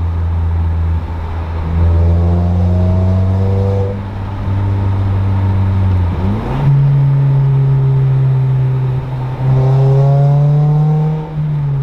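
2021 Toyota Corolla hatchback's four-cylinder engine through a freshly fitted 2J-Racing cat-back exhaust and mid-pipe, droning steadily under load. The drone swells with rising revs about 2 s in, jumps to a higher pitch about 6.5 s in, and swells again near the end before easing off.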